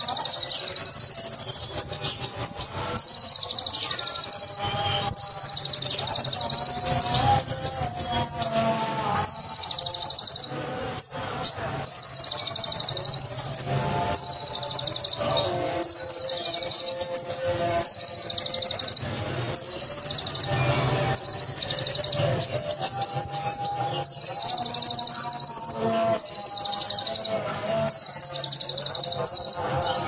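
Male kolibri ninja sunbird singing its 'roll tembak' song: high, very rapid rattling trills about a second long, repeated about every two seconds, with quick chirping notes in between.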